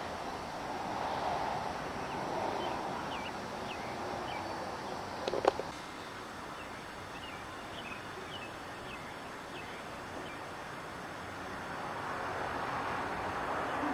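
Outdoor ambience: a steady rushing background with faint, short bird chirps scattered through it, and one sharp click about five and a half seconds in.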